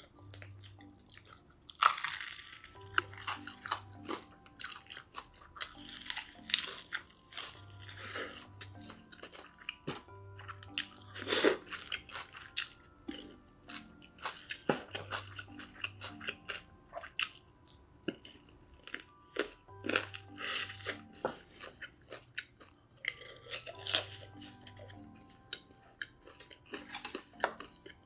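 Close-miked eating sounds: crunchy bites and chewing at irregular intervals, the loudest crunches about two seconds in and near the middle, over soft background music with a repeating low pattern.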